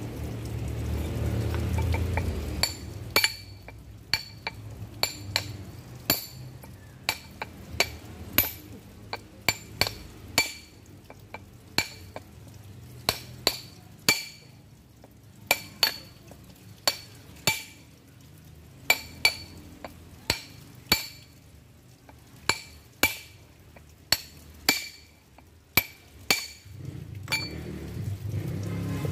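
Hammer striking a steel chisel against a very hard river stone, chipping it to rough out a stone mortar (cobek). The metal rings sharply with each blow, about one or two blows a second at an uneven pace, starting about three seconds in and stopping near the end.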